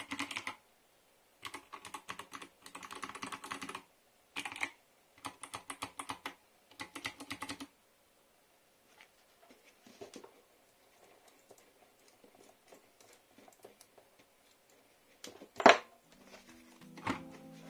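Typing on a mechanical keyboard with Kailh Box Navy clicky switches and PBT keycaps: rapid bursts of sharp clacky keystrokes for the first seven or eight seconds, then only a few faint scattered taps. One loud single click comes near the end, and music starts just before the close.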